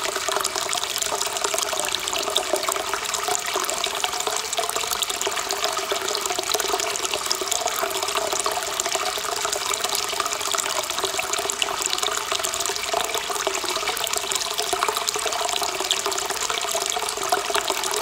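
Hot-spring water pouring steadily from the bath's inlet spout and splashing into the pool below.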